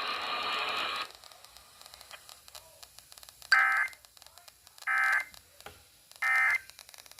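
Emergency Alert System end-of-message data tones over the radio: three short, loud bursts of digital data tones about a second and a half apart, marking the end of the alert. A steady hiss cuts off about a second in, and faint static crackles between the bursts.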